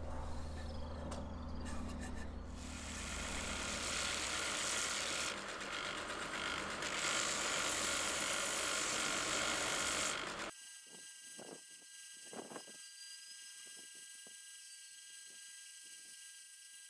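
Bench belt sander running, with a wooden flute blank pressed against the belt; the sanding hiss is loudest over the first ten seconds. It then cuts abruptly to a quieter steady high whine with scattered light taps.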